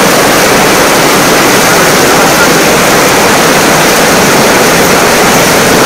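Heavy rain falling on stone steps and paving: a loud, steady, dense hiss.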